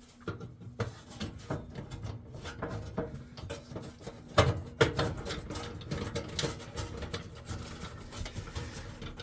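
Hands working parts inside a gas oven's burner compartment while fitting a replacement igniter: a steady run of small clicks, taps and rubbing, with two sharper knocks about halfway through.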